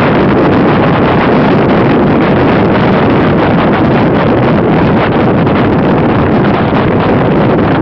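Steady, loud wind rushing over the microphone, mixed with engine and road noise from a motorcycle riding at speed.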